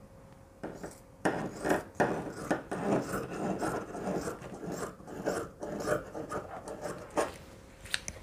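Scissors cutting through sheer chiffon fabric on a table top, an irregular run of scraping snips from about a second in until near the end.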